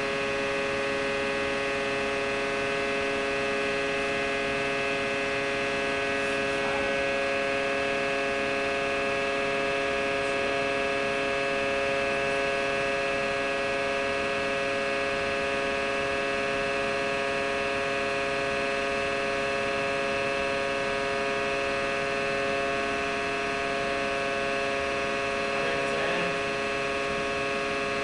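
Steady electric hum with several fixed tones from a concrete compression testing machine's hydraulic unit, running while the machine slowly loads a concrete cylinder that has not yet cracked.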